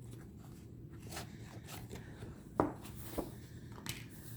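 Tarot cards and a guidebook being handled: a few light taps and soft rustles of card and paper, the sharpest tap a little past halfway.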